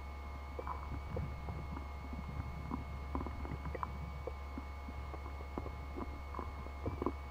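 Underwater river ambience over a gravel bed: a steady low rumble with a faint constant high whine, and irregular soft clicks and knocks.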